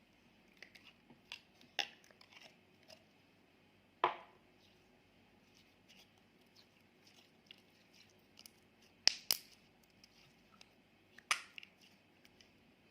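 Scattered light clicks and taps of small objects being handled, with a few sharper knocks, two of them in quick succession a little past the middle.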